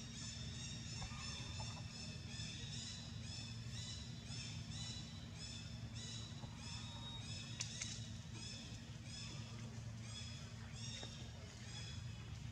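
A high-pitched animal call pulsing about three times a second, on and on without a break, over a low steady rumble.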